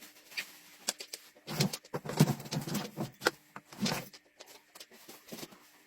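A dog rooting through a box of plastic bottles and crinkly packaging for treats: irregular rustling, crinkling and light clattering, with a few fuller bursts about one and a half, two and nearly four seconds in.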